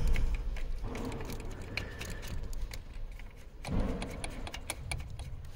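Ratchet wrench with a 13 mm socket clicking in quick runs as it works the nut holding the power cable on a starter motor's solenoid terminal loose, with a dull bump about four seconds in.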